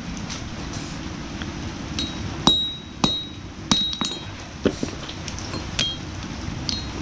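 Hammer blows on a mild steel knife blank, about six sharp, irregularly spaced strikes with a bright metallic ring, flattening the blade's back.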